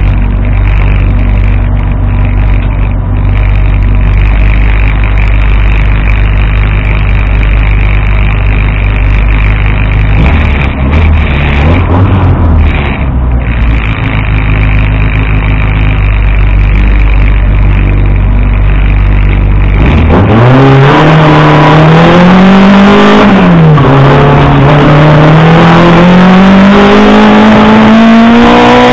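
Competition car's small-capacity engine (up to 1400 cc class), heard from inside the cockpit. It idles at the start with a few throttle blips about halfway, then launches about two-thirds in. The engine note rises hard, drops once as at a gear change, and climbs again under full acceleration.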